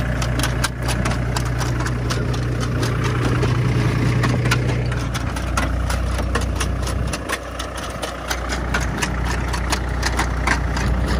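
Mahindra 265 DI tractor's three-cylinder diesel running steadily under load while it pulls a potato planter, with a quick, uneven run of sharp clicks and rattles from the working planter. The engine hum dips briefly about seven seconds in.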